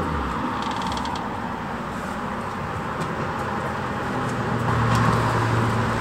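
Road traffic with a motor vehicle's engine hum, swelling to its loudest about five seconds in as the vehicle passes.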